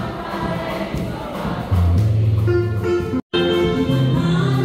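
Crowd noise in a large hall, then about two seconds in music enters: a choir singing over a steady bass line. The sound cuts out for an instant about three seconds in, then the music resumes.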